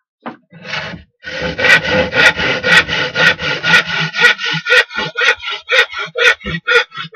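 A hand tool rubbing back and forth on a wooden board in quick, even strokes, about three a second. The strokes run together at first and become separate and crisper about four and a half seconds in.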